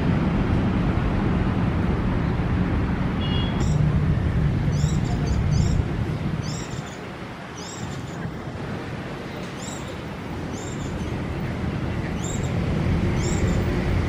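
Steady low rumble of road traffic, fading after about six seconds. From about three and a half seconds in, a bird chirps over it again and again: short, high, falling notes roughly once a second.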